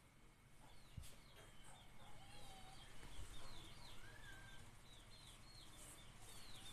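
Faint, repeated chirping of small birds, several short high chirps a second, with an occasional lower call between them.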